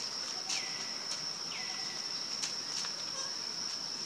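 A steady, high-pitched insect drone. Two short calls drop in pitch and then hold level, about half a second and a second and a half in, with a few light clicks.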